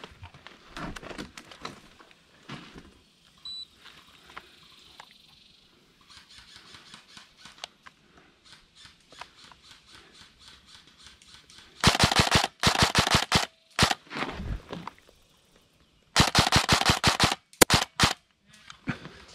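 Airsoft electric rifle (AEG) firing rapid full-auto bursts close by, loud, in two main strings about twelve and sixteen seconds in, with a quieter burst between. Before that there is quieter rustling and fainter, more distant airsoft fire.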